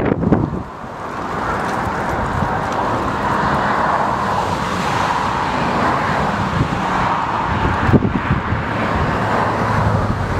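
Twin-engine jet airliner on short final, its engines a steady rushing noise as it approaches. Gusts of wind buffet the microphone at the start and again about eight seconds in.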